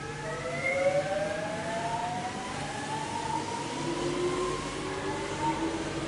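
Train running, with a whine in several tones that rise slowly in pitch over a steady rumble; a lower tone comes in about four seconds in.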